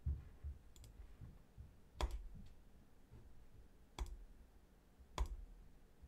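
Computer mouse clicks: three sharp single clicks, spaced a second or two apart, with a few fainter ticks between them.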